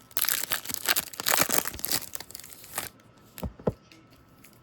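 Trading card pack wrappers crinkling and tearing as two packs are ripped open, busiest for the first three seconds; then two short, soft thumps of handling close together.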